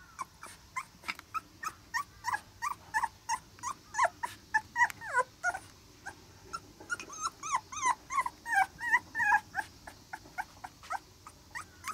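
Young black Labrador retriever puppy whining in a string of short high-pitched cries, about three a second, some sliding up and down in pitch, loudest in the middle.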